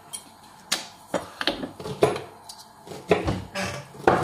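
Kitchen items being handled around a stainless steel mixing bowl: a string of light, sharp clicks and knocks, several a second apart, some with a brief ring.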